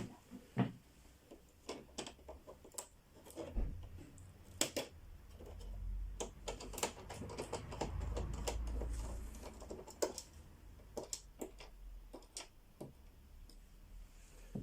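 Irregular clicks and light taps of a screwdriver and screws on the plastic back cover of an LED TV as it is being unscrewed, with a low rumble of handling in the middle.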